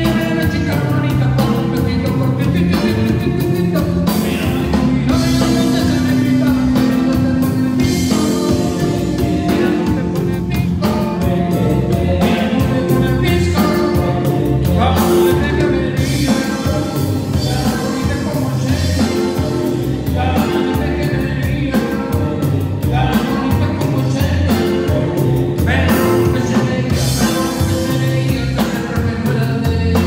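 Live cumbia band playing a song with a singing voice over a steady beat.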